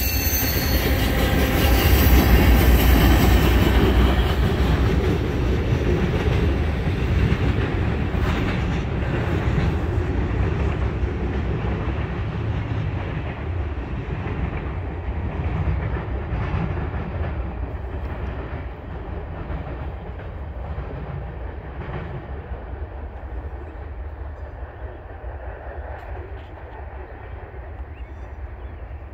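Freight train of tank cars rolling past, their wheels rumbling on the rails. A high wheel squeal dies away in the first couple of seconds, then the rumble fades slowly as the end of the train moves off.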